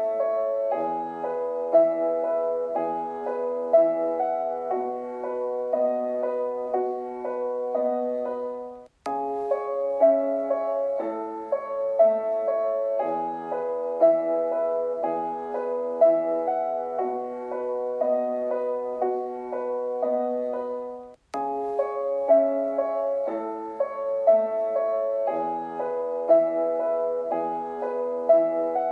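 Solo piano playing a gentle, repeating melody of evenly spaced notes. It cuts off abruptly twice, with a click, about nine seconds in and again about twelve seconds later, and picks up again each time.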